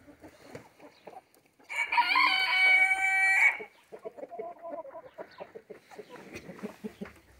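A rooster crows once, a single call of about two seconds starting a couple of seconds in, with chickens clucking softly around it.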